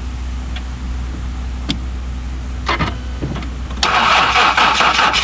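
A vehicle engine idles as a low hum; a little under four seconds in, a car's starter begins cranking the engine hard. The car is being jump-started because its battery has been drained.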